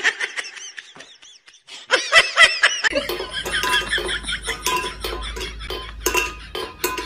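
High-pitched laughing in short bursts. From about three seconds in, a cat's paw knocks a stainless steel bowl on a hard floor, giving several sharp clinks over a low hum.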